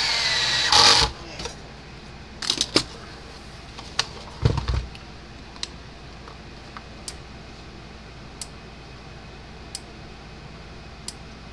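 A cordless screwdriver whirs for about a second and winds down, driving the last screw into the charger case, followed by a few knocks and a low thump as the unit is handled and set down. From about five seconds in, the repaired Gallagher M300 electric fence charger gives a sharp tick about every second and a half, its regular output pulse showing it is working again.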